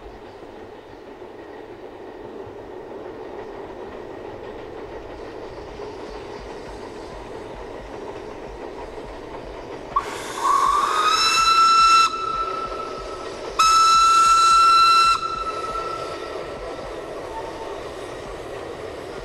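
Narrow-gauge steam train running and drawing gradually closer, with two steam-whistle blasts about halfway through. The first lasts about two seconds and slides up in pitch as it opens; the second, after a short gap, is a little shorter.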